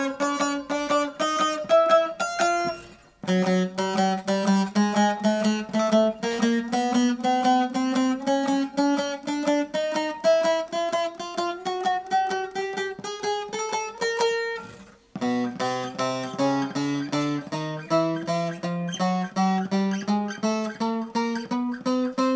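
Long-neck bağlama with a mulberry bowl, picked note by note in rising runs up the frets: one run ends about 3 seconds in, the next climbs for about 12 seconds, and a third starts lower near 15 seconds and climbs to the end. Each run walks a string course up through every fret to test the instrument's playability.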